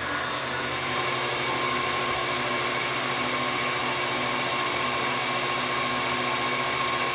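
Electric blower running steadily, pushing air through a venturi air amplifier: an even rush of air with a low motor hum. A steady whine joins about a second and a half in.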